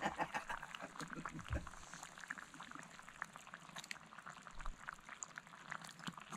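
Venison stew simmering in a cast-iron dutch oven over charcoal, faint, with many small irregular bubbling pops, while tomato sauce is poured in from a carton.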